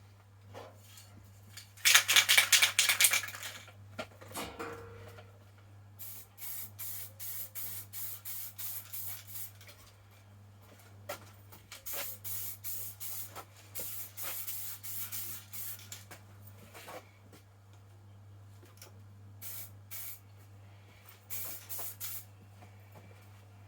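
Acrylic aerosol spray paint can hissing out in many short, quick bursts, laying light coats. A louder, rougher burst of noise comes about two seconds in.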